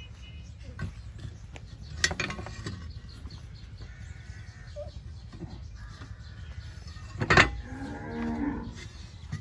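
Cattle mooing twice, a short call about two seconds in and another near the end. A sharp knock, the loudest sound, comes just before the second moo.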